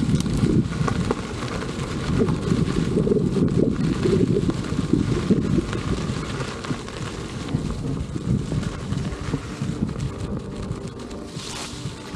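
Wind buffeting the camera microphone on a moving electric unicycle: a loud, uneven rumble low down, with a short hiss near the end.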